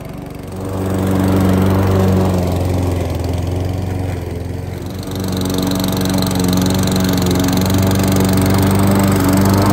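Huter GLM-6.0 SP lawn mower's four-stroke petrol engine running steadily at a constant speed while cutting grass. It grows louder about half a second in and dips briefly just before the middle.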